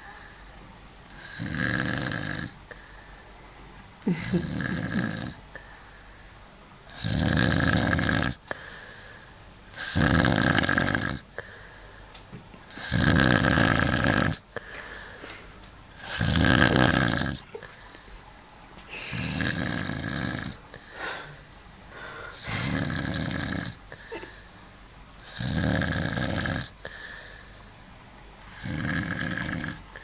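A sleeping man snoring: about ten snores, one every three seconds or so, each lasting a second or more. The loudest come in the middle.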